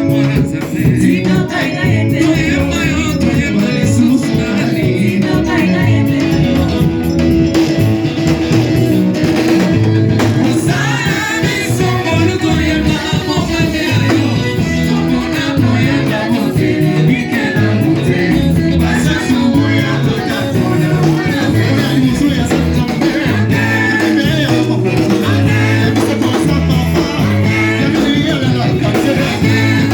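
Worship song with voices singing over a band, whose repeating bass line keeps a steady beat throughout.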